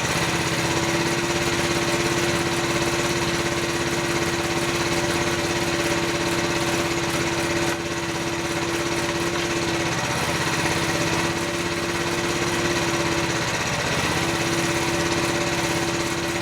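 A small engine running steadily with a constant whine over it; the level dips slightly about halfway through.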